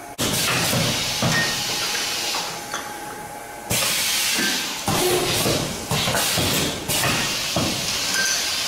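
Semi-automatic bag-on-valve aerosol filling line running: repeated loud hisses of compressed air from its pneumatic heads, each starting suddenly, with knocks in between.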